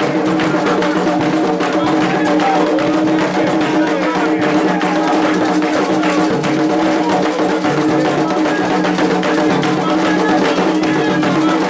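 Candomblé ritual music: drums and percussion playing a steady, dense rhythm, with voices singing over it.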